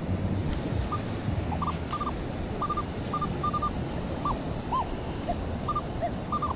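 Minelab Manticore metal detector beeping: short, clipped high tones, some in quick pairs and triples, with a few brief rise-and-fall chirps, as the coil sweeps over a buried target. The target turns out to be a penny.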